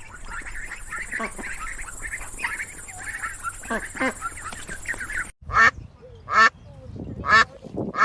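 Ducks quacking: a flock calling over one another with many short quacks, then, after a sudden break, loud single quacks repeated about once a second.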